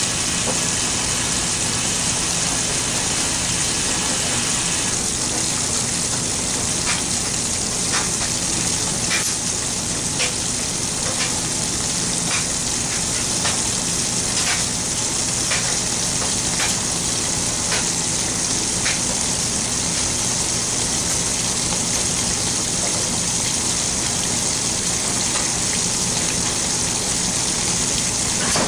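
Washing machine running a load of towels: a steady rush of water with a low hum underneath, and a run of faint ticks about once a second through the middle.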